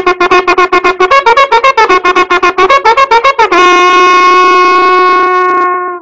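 Comic horn sound effect: a trumpet-like instrument plays a run of rapid short notes that step up and down in pitch, then holds one long steady note that cuts off abruptly near the end.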